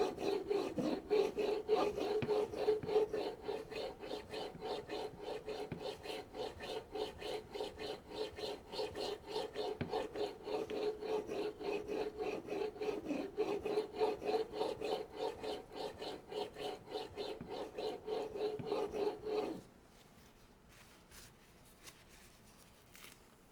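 Rhythmic back-and-forth rubbing of a santoku in a sharpening guide on a fine Shapton Pro 5000-grit waterstone. The polishing stone itself is barely audible; the sound is mostly the guide sliding on the countertop. The strokes stop abruptly near the end.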